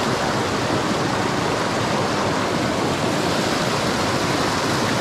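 Steady rushing of a creek's moving water, an even wash of noise with no break.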